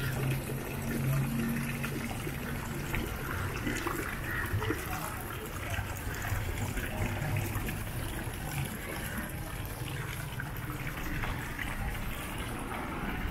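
Fountain water trickling and splashing as small jets fall onto stone discs in a shallow pool, with distant voices of passers-by.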